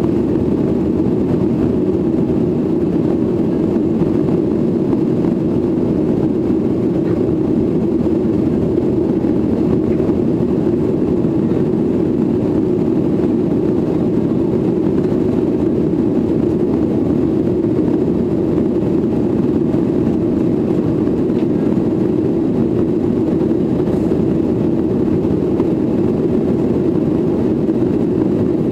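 Steady, even drone inside the cabin of a Boeing 737-800 climbing after takeoff, from its CFM56-7B engines at climb power.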